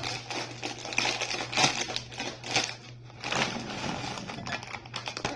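Takis rolled tortilla chips poured from a crinkly snack bag into a glass bowl: an irregular rattle of hard chips tumbling onto glass, with the bag crinkling.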